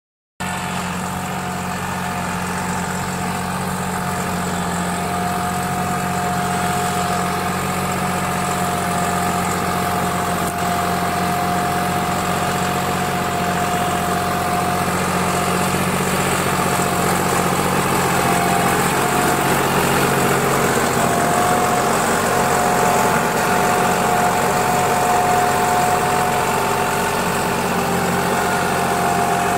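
Deutz-Fahr Agromaxx 45 2WD tractor's diesel engine running steadily under load while pulling a nine-tine cultivator through dry soil, with a steady whine above the engine note.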